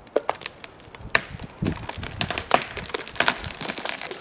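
Wood cracking and splintering in a run of sharp, irregular snaps, denser from about a second in: the hinge wood of a freshly cut tree giving way as it tips.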